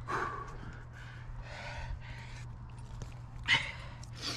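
A climber breathing hard through a mantle move: a string of short, forceful exhales and gasps, the sharpest about three and a half seconds in.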